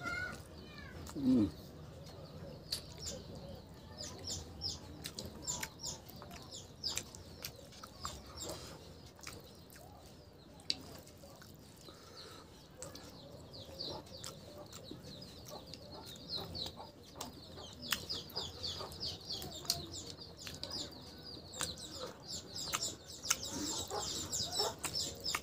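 Wet, sticky eating sounds of rice and curry being mixed and eaten by hand: fingers squishing food, chewing and lip-smacking, heard as many short clicks. Birds call in the background, high and chirping, busier in the second half. A short low sound about a second in is the loudest.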